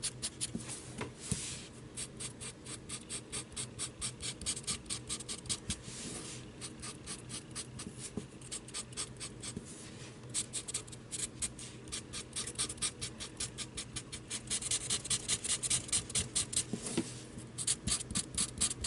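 Black Sharpie permanent marker scratching along the edge of a cardboard cutout in rapid short back-and-forth strokes, with brief pauses. The strokes are strongest near the end.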